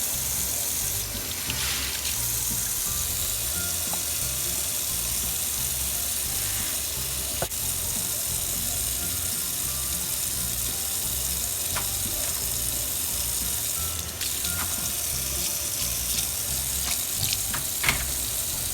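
Tap water running steadily into a sink or baby bath, with a few small knocks along the way.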